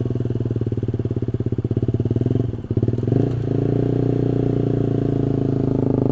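Honda CB150R's single-cylinder engine running at low riding speed with a fast pulsing beat. About two and a half seconds in the sound dips briefly, the pitch shifts, and the engine settles into a smoother, steady note.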